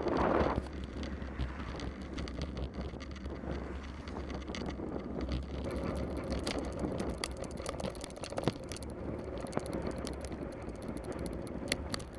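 Bicycle being ridden on a wet road: a steady low tyre rumble and rushing noise, with many small clicks and rattles throughout. A louder rush of noise dies away about half a second in.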